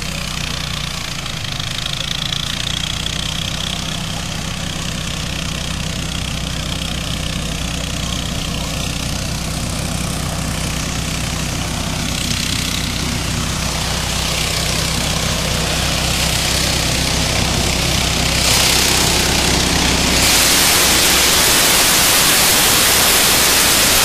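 Mini combine harvester's engine running steadily. About 20 seconds in, a loud, even rushing noise takes over and the engine hum fades under it.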